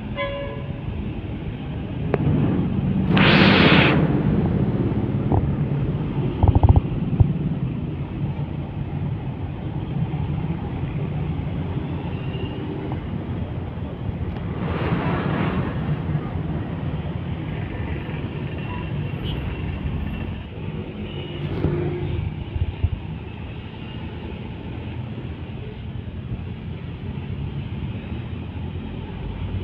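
Busy road traffic: truck diesel engines, minibuses, cars and motorcycles running and passing in a steady low rumble. A loud hiss comes about three seconds in, and a fainter one near the middle.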